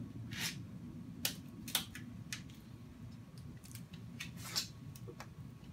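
Light handling clicks and paper rustles, about seven short sharp ones spread across a few seconds, as small magnets and paper slips are set down on a steel welding table, over a low steady hum.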